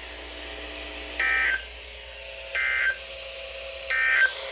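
Emergency Alert System (SAME) end-of-message signal: three short digital data bursts about 1.4 s apart, marking the end of the alert message, with a faint steady hum between them.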